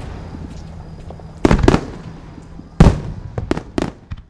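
Aerial fireworks shells bursting: six sharp bangs over a fading rumble. Two come close together about a second and a half in, and four more follow in quick succession near the end.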